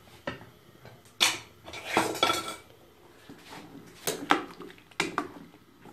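Kitchenware clinking and knocking as a pot, a jar and a serving spoon are handled: about seven sharp clinks spread through the few seconds, some leaving a short ring.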